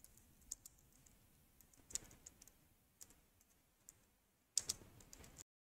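Faint keystrokes on a computer keyboard, typing at an uneven pace: scattered single clicks, then a quicker run of keys near the end.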